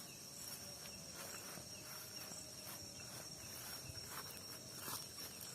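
Night insects chirring in one steady high-pitched tone, with a few faint scuffs like footsteps on the ground.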